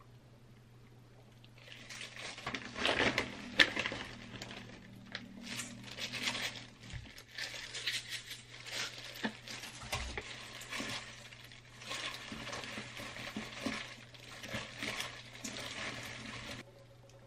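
Plastic-gloved hands tossing noodles and seaweed in a stainless steel mixing bowl: crinkling glove plastic and rustling food with light taps against the metal, starting about two seconds in and stopping shortly before the end.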